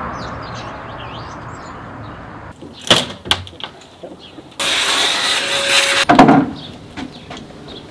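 An old timber window sash being worked loose and lifted out of its frame: two sharp wooden knocks about three seconds in, then a loud scraping, sliding noise lasting over a second, ending in a heavy knock.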